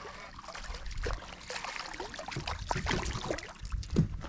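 Water splashing and dripping with scattered clicks and knocks as a small bass is landed and handled in a fishing kayak; the sharpest knock comes about four seconds in.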